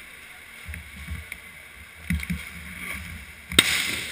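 Inline hockey play at the net: low thuds on the plastic rink floor, then a single sharp crack about three and a half seconds in, a puck impact during a shot on goal, with a short echo in the rink hall.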